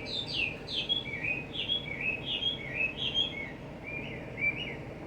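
A songbird singing a quick, continuous run of short whistled notes, each slurring down or up, about three a second, over steady low background noise.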